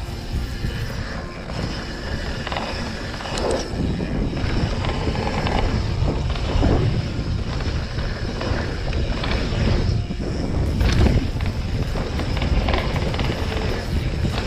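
Mountain bike riding fast down a dry dirt trail: a steady rush of wind on the microphone with tyres on loose dirt and the bike rattling and knocking over bumps.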